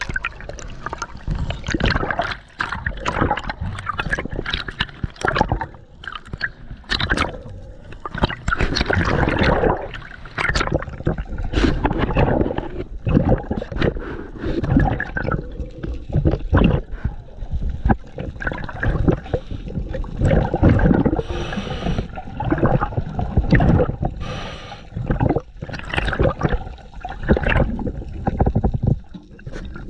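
Water splashing and sloshing in uneven surges, with no steady rhythm.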